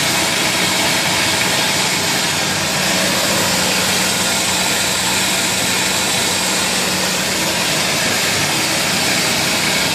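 Automatic continuous popcorn coating machine running: a steady hum with an even rushing noise from its gear motor and the chain-driven perforated drum turning the popcorn.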